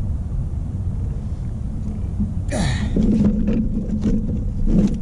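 Low wind rumble on the microphone. About halfway in there is a sudden thump, then scattered sharp clicks and an on-and-off low hum as a freshly caught catfish thrashes while being handled on the kayak.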